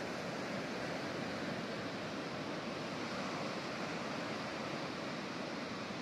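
Ocean surf washing steadily: a continuous rush of waves at an even level, with no single breaker standing out.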